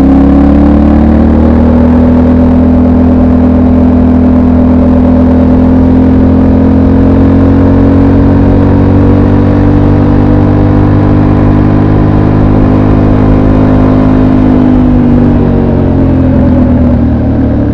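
Yamaha Ténéré 700 World Raid's 689 cc parallel-twin engine through its stock exhaust, heard on board while riding. The engine note rises a little at first, holds steady at moderate revs, then drops off near the end as the throttle closes.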